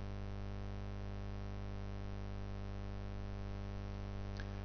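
Steady electrical hum with many overtones, a mains buzz under the recording, holding at one pitch and level without change.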